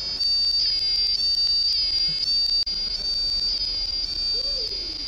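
Piezo buzzer of a homemade light-to-sound device sounding a shrill, high electronic tone whose pitch jumps and glides about twice a second, its pitch set by the light the circuit picks up from the glowing LEDs. The tone cuts out briefly about halfway through.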